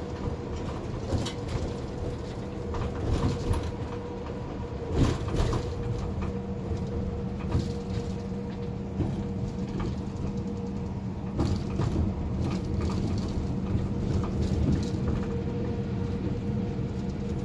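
Inside a moving bus: steady engine hum and road noise, with scattered knocks, the loudest about five seconds in.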